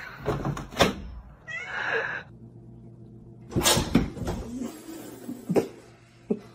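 A cat meowing once, a short call rising in pitch about one and a half seconds in, followed by a few short bumps.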